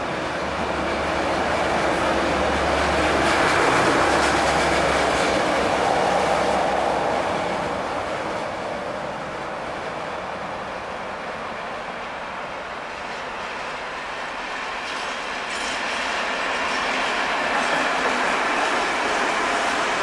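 Freight train hauled by two class 742 diesel locomotives running past, the engines' steady hum giving way to the clatter of heavy open freight wagons rolling over the rail joints. The noise swells early on, eases off in the middle and builds again as the wagons pass near the end.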